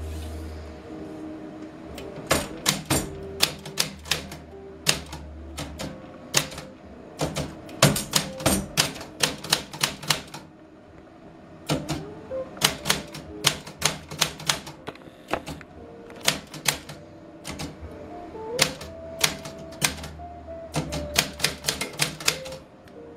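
Portable manual typewriter being typed on: keys striking in quick, uneven runs, with a short pause a little after ten seconds in.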